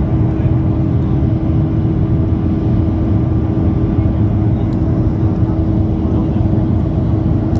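Steady cabin drone of a Boeing 737-800 climbing out after take-off, heard from a window seat beside the CFM56 turbofan: deep engine rumble and air rush with a steady hum running through it.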